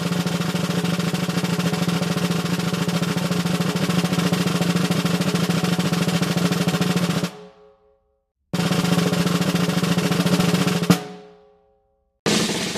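Drum rolls: a long steady roll stops at about seven seconds and rings out briefly. A second, shorter roll ends in a single accented hit that rings out. A third roll begins at the very end.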